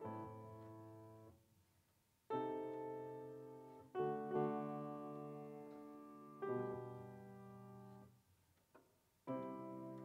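Grand piano played slowly: full chords struck one after another, each left to ring and fade, with short pauses between them.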